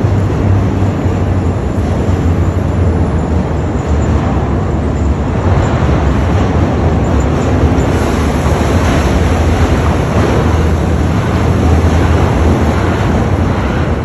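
Caterpillar 988 wheel loader's diesel engine running loud and close as the loader drives with a full bucket, a steady low drone with broad mechanical noise over it.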